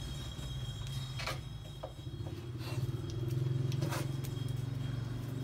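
A motor or engine running steadily with a low, pulsing drone, and a few short sharp clicks over it.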